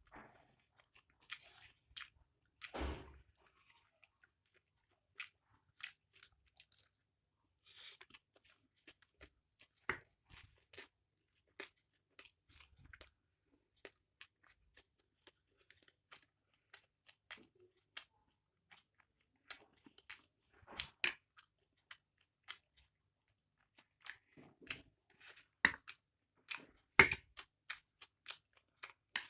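Close-up eating sounds: a person chewing mixed chowmein with chicken and egg, with scattered wet clicks and crunches, and louder ones now and then.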